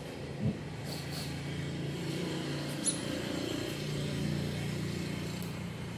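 A steady low motor hum that swells a little twice, with a brief sharp click about three seconds in.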